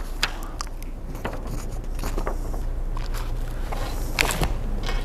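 Sheets of paper being handled and crinkling close to a handheld microphone, with a scatter of short crackles and knocks, the loudest about four seconds in, over a steady low hum.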